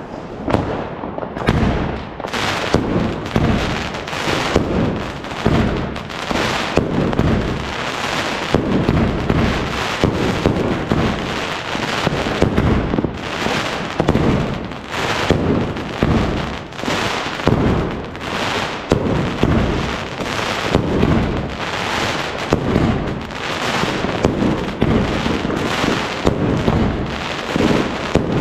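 New Year's Eve fireworks: a dense, unbroken barrage of many overlapping bangs, several a second, with no pause.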